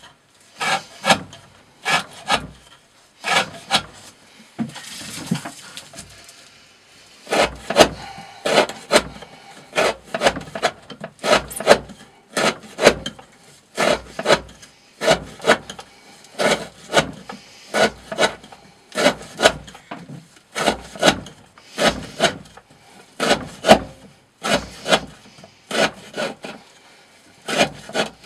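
A D2 steel knife blade slicing through 20 mm rope, cut after cut at about two a second, with a short break about five seconds in.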